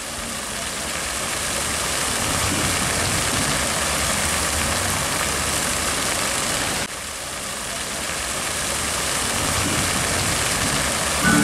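Splashing of a ground-level pedestrian fountain: water jets shooting up from the paving and falling back onto the wet pavement in a steady rush of spray. The rush dips briefly about seven seconds in, then builds again.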